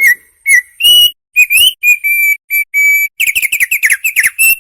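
Opior (a white-eye songbird) singing loud, clear whistled notes. A few short slurred whistles lead into longer level whistles, then a quick run of falling notes about three seconds in, and steady whistles again near the end.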